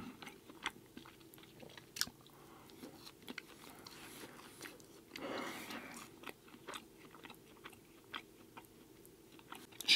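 Close-miked chewing with small, soft mouth clicks, and a short soft rush of noise about five seconds in.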